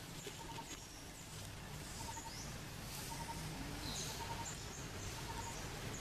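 Outdoor ambience with birds calling: short high chirps come every second or so, and a faint call of three quick pulses repeats about once a second.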